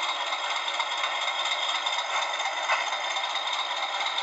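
Sound-decoder recording of a Class 20 diesel's English Electric engine running, played through a Bachmann model locomotive's small speaker: a steady, thin, rattly engine sound with no bass.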